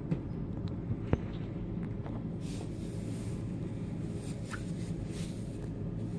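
A hand handling a glossy cardboard LP sleeve: two sharp clicks about a second in, and soft swishes around three seconds and five seconds in as it brushes over the cover. A steady low hum runs underneath.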